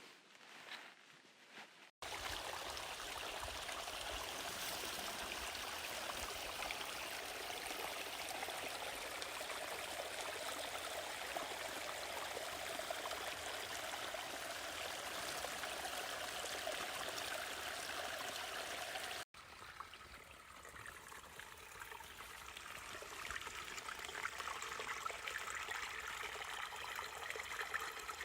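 Flowing water of a forest stream: a steady rushing that cuts in abruptly about two seconds in and cuts off suddenly past the middle, then comes back softer and swells toward the end.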